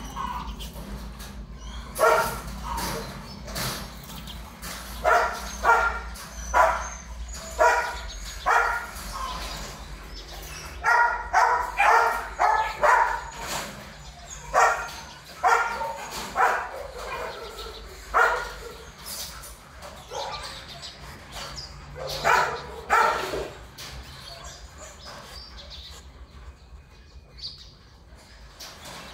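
Dog barking, sometimes a single bark and sometimes quick runs of three or four, for about twenty seconds.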